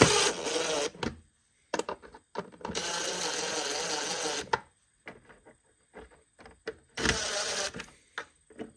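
Cordless drill running in three short bursts, the longest about two seconds, driving screws into the plastic air box cover, with small clicks and knocks between. Some of the screw holes are stripped, so the screws don't all bite.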